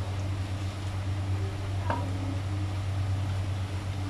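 A steady low hum under a wooden spoon stirring a thick chicken stew in a stainless steel pan, with one sharp knock of the spoon against the pan about two seconds in.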